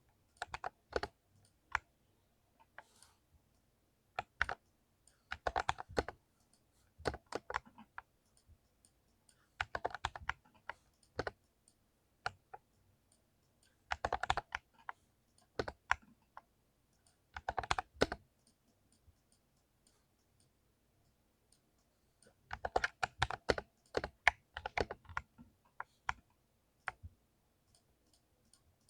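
Keys being typed on a 60% layout keyboard: quick clusters of clacking keystrokes in short bursts, with pauses of a few seconds between them and a longer run of typing about three quarters of the way through.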